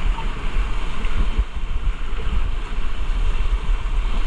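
Rushing river whitewater around a raft, a steady loud wash, with wind buffeting the microphone in a heavy low rumble.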